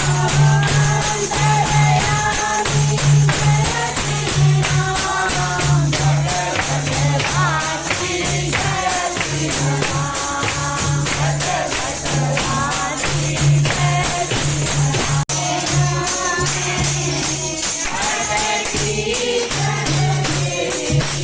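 Devotional kirtan: voices singing a hymn over jingling hand percussion and a steady, rhythmic low drum beat. The sound drops out for an instant about fifteen seconds in.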